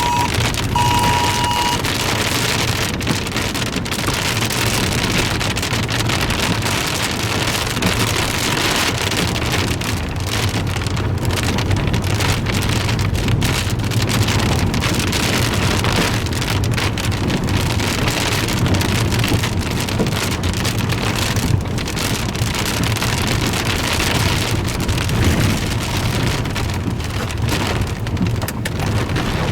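Heavy rain pattering steadily on a vehicle's roof and windshield, over the low rumble of the vehicle driving on a muddy road.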